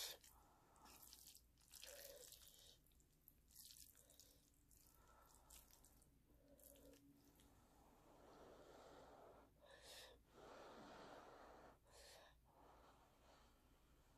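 Faint, wet eating sounds of black bean sauce noodles: chewing and sticky sauce-coated noodles moving in the mouth. They come as a series of short, separate sounds with quiet between them.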